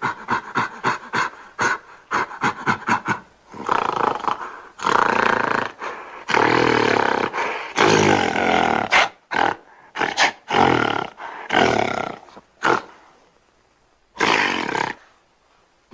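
Giant ape monster vocal effects, mixed from gorilla and big-cat roars: a quick run of short grunts, about three or four a second, builds into several long roars with brief pauses. A shorter roar comes near the end.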